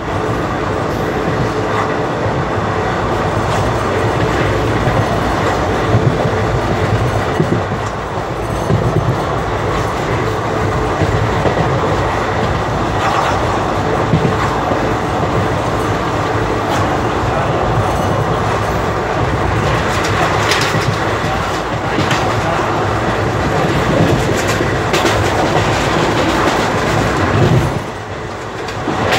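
Passenger train coach running at speed: a steady rumble and rush of steel wheels on rail, heard at an open barred window, with sharp clacks over rail joints now and then. It eases briefly near the end.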